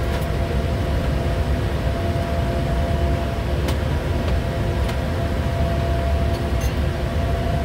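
Steady cockpit noise of a Bombardier Challenger 350 twin-turbofan business jet in descent: a low rumble of airflow and engines with faint steady hums over it.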